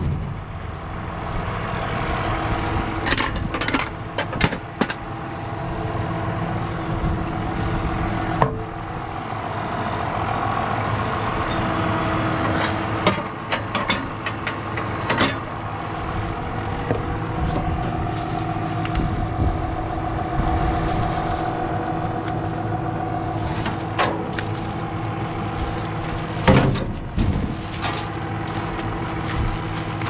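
Tractor diesel engine running steadily, with intermittent sharp metallic clunks and knocks as the round baler's net-wrap compartment cover and fittings are handled.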